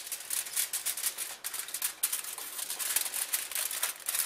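Aluminium foil crinkling as it is folded by hand around ears of corn: a continuous crackle of quick crinkles.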